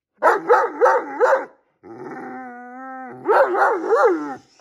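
Great Dane complaining out loud: four quick, pitch-bending woo-woo calls, then a long steady held note, then three more bending calls.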